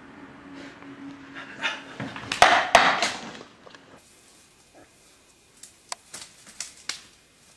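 A cat with a plastic cup stuck over its head bumping and scrambling on a wooden tabletop, a flurry of knocks and scrapes about two to three seconds in. Then a few sharp cracks of twigs snapping as a moose thrashes its antlers in brush.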